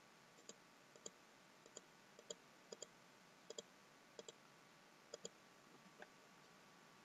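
Computer mouse left button clicking, a dozen or so faint, sharp clicks at an uneven pace, some in quick pairs.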